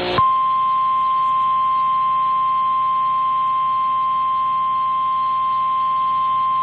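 Emergency Alert System attention signal: a single steady 1050 Hz warning alarm tone of the kind NOAA Weather Radio uses. It starts just after a short burst of noise and holds at one unchanging pitch, announcing the severe thunderstorm warning that follows.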